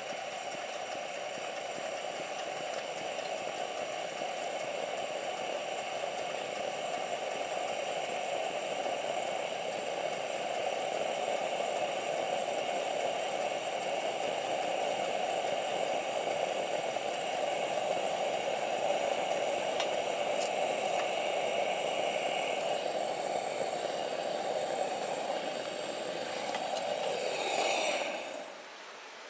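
A steady rushing hiss that slowly grows louder, then drops in pitch and cuts off near the end.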